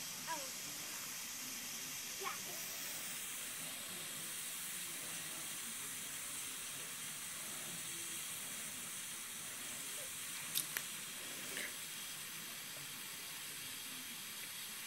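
Lawn sprinkler on a garden hose spraying water: a steady hiss, with two sharp clicks about ten and a half seconds in.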